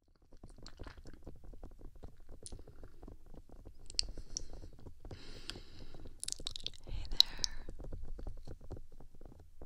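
Fingertips scratching and tapping on the ear pieces of a HeadRec Binal2 binaural microphone: a fast run of small ticks and crackles with a low handling rumble, and louder, hissier rubbing between about five and seven and a half seconds in.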